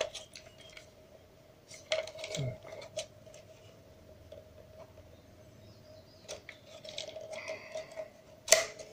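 Plastic case of a handheld toy RC transmitter being handled and turned over: scattered light clicks and taps, busier in the last few seconds, with a sharper click near the end.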